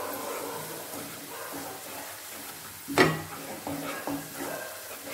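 Chopped vegetables sizzling in oil in a nonstick kadai as a wooden spatula stirs and scrapes them. A sharp knock of the spatula against the pan about three seconds in is the loudest sound, followed by a few lighter taps.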